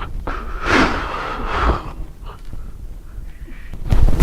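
A man's deliberately loud, exaggerated fake snoring. One rasping snore trails off over the first two seconds, there is a quieter stretch, and another loud snore starts near the end.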